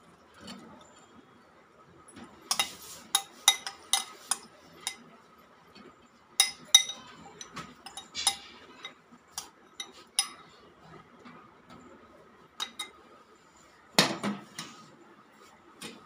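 A metal spoon scraping and clinking against a glass bowl and a stainless steel plate as cooked chicken pieces are spooned out. Irregular sharp clinks come in clusters, with a heavier knock near the end.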